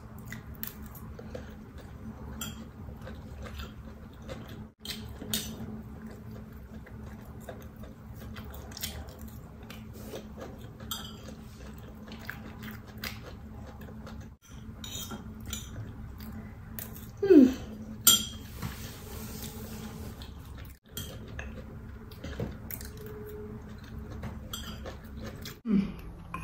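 A spoon clinking and scraping on a plate while eating, light scattered clicks over a steady low hum. Twice, about two thirds in and near the end, a brief louder sound that falls in pitch.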